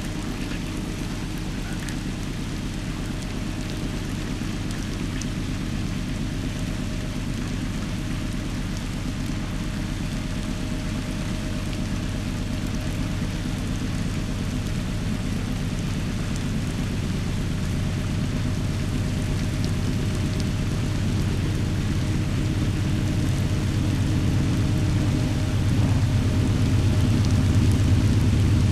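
GE diesel-electric locomotives of a loaded coal train, led by an AC4400CW, working hard up a grade while still out of sight. They make a deep, steady engine rumble that grows gradually louder as the train approaches.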